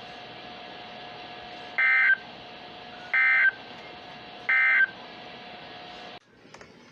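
Emergency Alert System end-of-message signal: three short bursts of SAME digital data tones, about 1.3 s apart, marking the end of the severe thunderstorm warning. A faint steady tone and hiss sit under them and cut off abruptly near the end.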